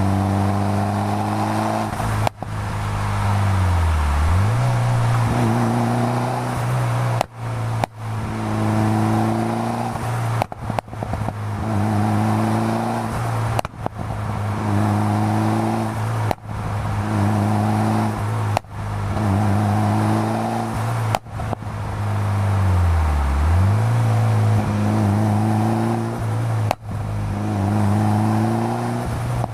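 1998 Mitsubishi Lancer Evolution V's turbocharged 4G63 four-cylinder through a straight-pipe exhaust, accelerating hard: the revs climb, cut off briefly at each gear change, and climb again, about a dozen times. Twice the revs drop low and then pull back up.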